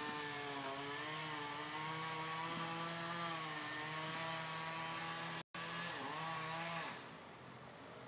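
Chainsaw running at high revs, its pitch wavering up and down as it cuts through the top of a tall tree, then stopping about seven seconds in.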